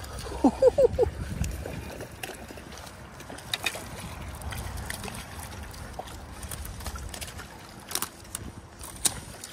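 Water splashing as a hooked trout thrashes at the surface close to the bank, with a few sharp splashes among the steady sloshing.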